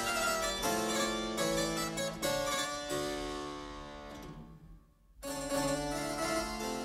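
Early electronic music made of dense, plucked keyboard tones with a harpsichord-like sound. About three seconds in, a held chord slowly fades almost to silence; just after five seconds the music cuts back in suddenly.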